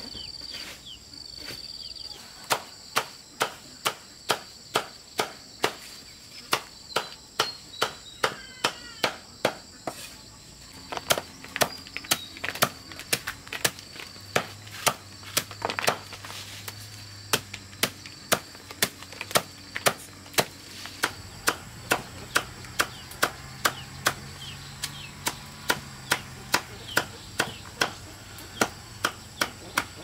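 Repeated chopping with a blade: sharp, evenly spaced strokes about twice a second, pausing briefly about ten seconds in. Insects drone steadily underneath.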